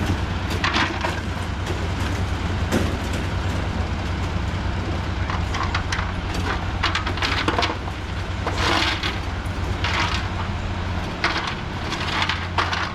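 A heavy engine running steadily under repeated rough scraping and crunching sounds, the loudest and longest about two thirds of the way in.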